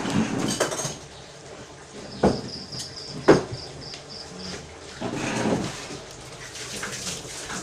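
Tableware knocking on a table: two sharp knocks about a second apart, with a rapid, high-pitched pulsing chirp in the background at about four pulses a second.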